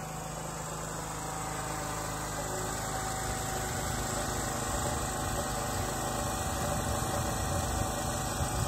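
Generator engine running steadily at a constant speed. Wind rumbles on the microphone, growing stronger toward the end.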